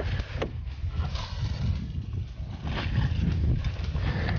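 Several sharp clicks and knocks as the latches of a hard gun case are undone, over a low, uneven rumble of wind on the microphone.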